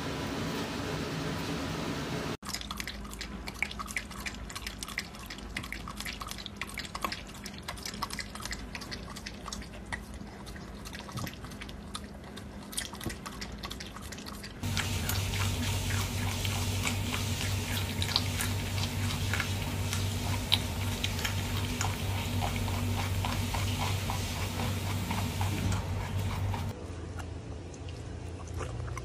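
Dog lapping milk from a stainless-steel bowl: a quick run of wet clicking licks. About halfway a steady low hum comes in under more clicking sounds.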